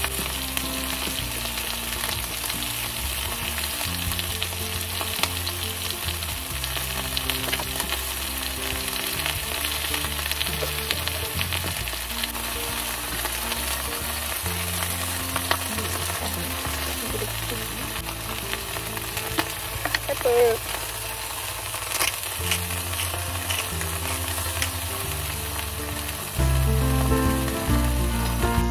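Chicken and vegetable stir-fry sizzling and frying in a pan on a small portable gas camp stove, a steady hiss with a few sharper knocks about two-thirds of the way through.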